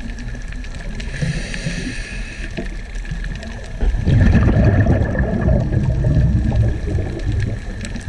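Underwater sound picked up through a camera's waterproof housing: a muffled low rumble of moving water, swelling into a louder rush of bubbling about four seconds in, with a faint steady high whine throughout.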